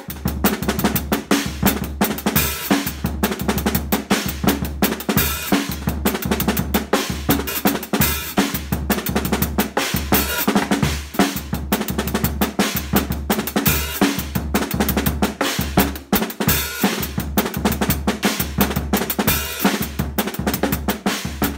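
Drum kit playing a repeating groove: steady hi-hat strokes with snare and bass-drum hits combined in one pattern, struck with sticks.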